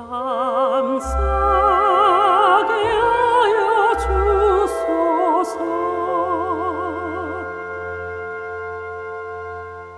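Amateur soprano singing the closing phrase of a song with a wide, operatic vibrato over sustained accompaniment chords. Her voice ends about seven seconds in, and the accompaniment holds its final chord and fades out.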